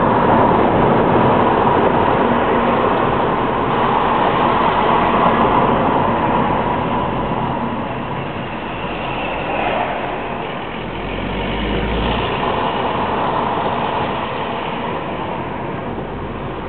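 Steady road noise inside a moving car's cabin: engine, tyre and wind hiss with no distinct events, easing off gradually toward the end.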